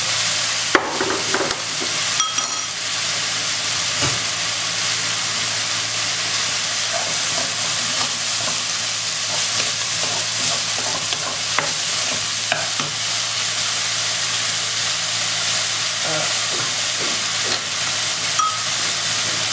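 Ground pork and vegetables sizzling steadily in a nonstick wok while a wooden spatula stirs and scrapes them, with scattered clicks and taps against the pan.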